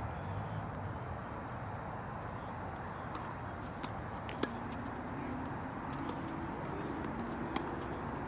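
Tennis ball impacts: a few sharp knocks, the loudest about four and a half and seven and a half seconds in, over a steady outdoor background with a low hum.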